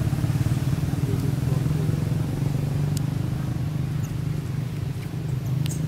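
A motor engine running steadily with a low, even drone.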